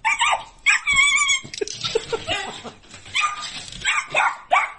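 Puppy yipping and whining: many short, high-pitched calls one after another.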